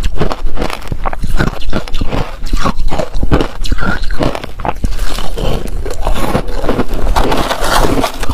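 Close-up crunching and chewing of a chunk of crumbly ice dipped in passion fruit pulp: a dense, irregular run of crisp crunches.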